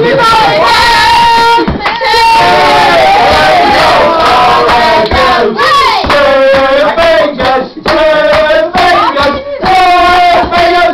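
People singing loudly in long held notes, the pitch sliding between notes with short breaks.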